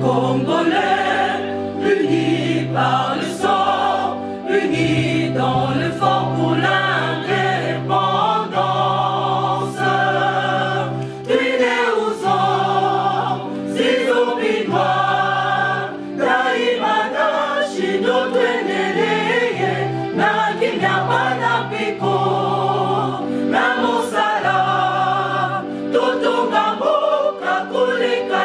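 Music: a choir singing over a bass line of held low notes.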